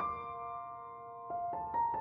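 Soft background piano music: a held note fading away over the first second, then a few single notes picking up near the end.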